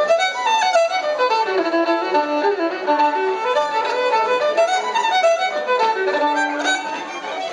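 Fiddle playing a quick Irish traditional tune, a fast run of short notes, with guitar and keyboard backing.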